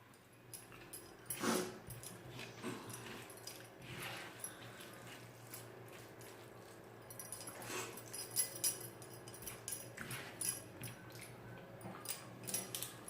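Close-up eating sounds: chewing and mouth clicks, with a few louder smacks every couple of seconds.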